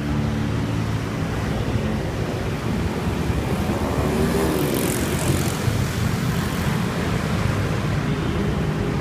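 Steady motor-vehicle noise with a low engine hum. Around four to five seconds in, a passing vehicle swells and fades with a hiss.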